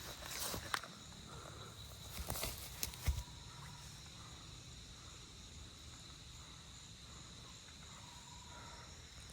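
A few footsteps in the first three seconds, over a faint, steady, high-pitched insect trill that carries on after the steps stop.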